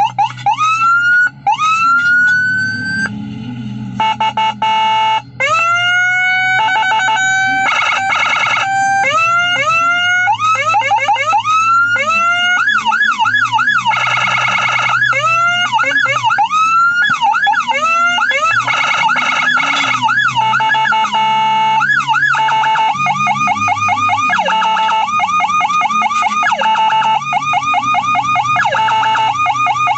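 Whelen HHS 60-watt electronic siren module sounding and switching through its tones. It moves from repeated rising whoops to steady tones, then fast up-and-down yelps, a rapid warble and a quick pulsing pattern.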